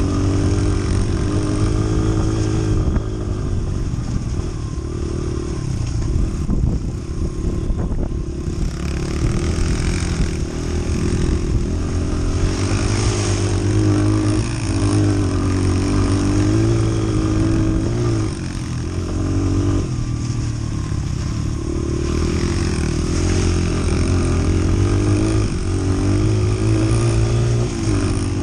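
Single-cylinder four-stroke engine of a small Honda trail motorcycle, heard close up from the bike itself as it rides over rough grass. The revs rise and fall continually as the throttle is worked, with a few brief drops in revs.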